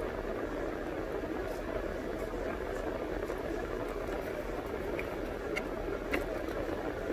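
Steady hum inside a car's cabin with the engine running, and a few faint ticks about five to six seconds in.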